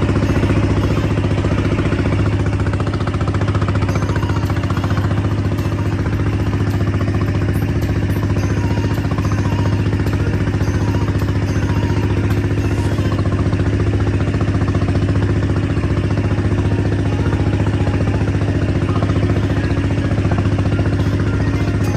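Outrigger fishing boat's engine running steadily under way, a constant low drone that holds the same pitch and level throughout.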